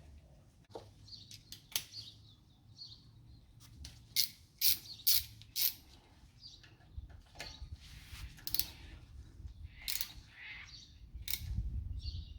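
Sharp metallic clicks and clinks of hand tools and brake hardware being worked, with a run of four clicks about half a second apart a little after four seconds in.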